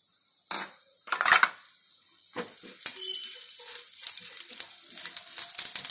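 Whole cumin seeds and dried red chillies sizzling and crackling in hot mustard oil as a tempering, the spices blooming in the oil, while a wooden spatula stirs and scrapes the frying pan. Two short sharp scrapes come about half a second and a second in, then the crackling sizzle builds and grows louder.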